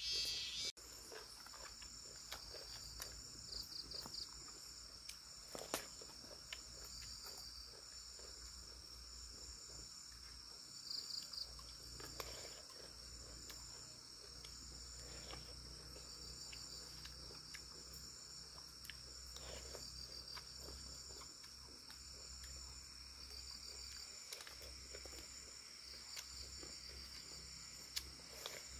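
Insects chirping: a steady high trill with a pulsing call repeating at an even pace, joined now and then by short quick trills. A few faint clicks sound over it.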